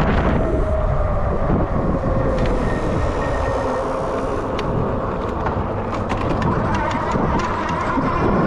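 Electric bike hub motor whining under power, its pitch sagging slightly and then rising as speed picks up toward the end, over wind buffeting the camera microphone and scattered ticks from the tyres on the trail.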